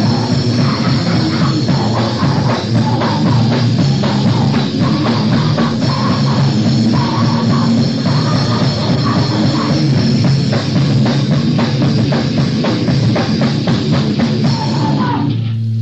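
Recorded crust/grind punk song: distorted guitars, bass and drums playing loud and dense, cutting off abruptly at the very end as the song finishes.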